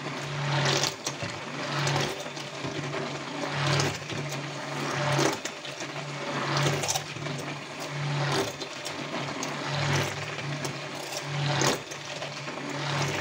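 Electric stick blender pulsed on and off about every one to two seconds, its motor humming with each burst as the blade churns thick, wet soap batter. The batter is being brought to trace.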